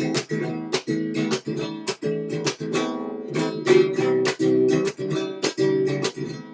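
Acoustic guitar strummed flamenco-style: a steady run of sharp, full-chord strokes, several a second.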